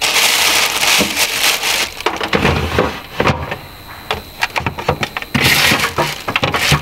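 Rustling and crinkling as the ingredient packets are handled, with scattered clicks and knocks. There are two loud stretches: one over the first two seconds and another near the end.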